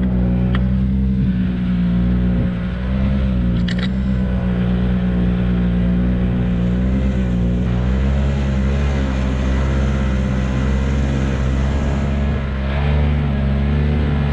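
Yamaha Bravo 250cc long-track snowmobile's two-stroke engine running steadily while riding through deep snow, its pitch wavering only slightly. There are a couple of brief clicks, about half a second and about four seconds in.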